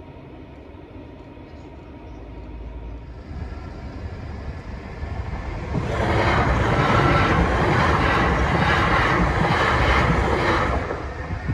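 A train approaching and then passing at speed over the level crossing, loudest for about five seconds in the second half, with a rhythmic clatter of wheels. It drops away suddenly just before the end.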